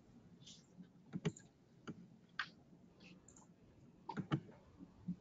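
Faint, irregular clicks of a computer mouse and keyboard, about a dozen short taps in small clusters, the heaviest group about four seconds in.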